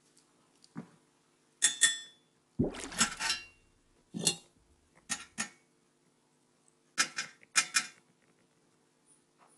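Thin sheet-steel parts of a CD-ROM drive's chassis and tray frame clinking and rattling as they are handled and taken apart. There are sharp metallic clatters in about seven clusters, the heaviest a knock with a rattle nearly three seconds in, over a faint steady hum.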